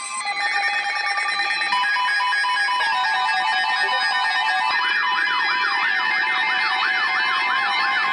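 Layered electronic alert tones: steady beeps and a rapid pulsing tone, joined about five seconds in by a fast siren-like warble sweeping up and down about three times a second.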